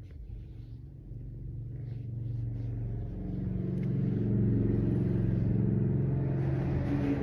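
Tabby kitten purring close to the microphone, a low steady rumble that grows louder over the first few seconds and then holds.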